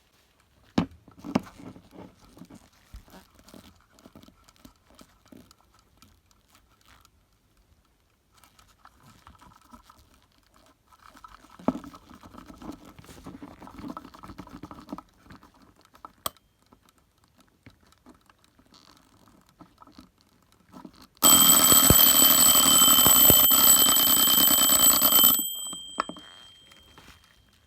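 Bulova Back to the Future clock's alarm going off: a loud, steady alarm sound with many tones for about four seconds, then dying away with a faint high tone lingering briefly. Quiet scattered clicks and knocks come before it.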